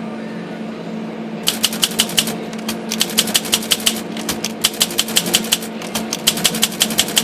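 Olympia SM-3 manual typewriter being typed on: a quick, even run of keystrokes, several a second, starting about a second and a half in, over a steady low hum.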